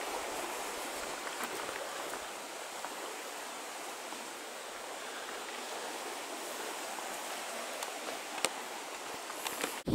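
River water rushing steadily, with a couple of faint clicks near the end.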